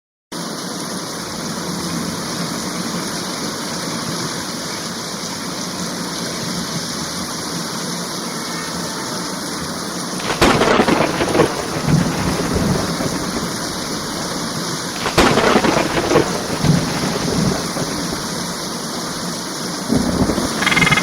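Heavy, steady rain in a thunderstorm, with thunder cracking and rumbling about halfway through, again a few seconds later, and once more near the end.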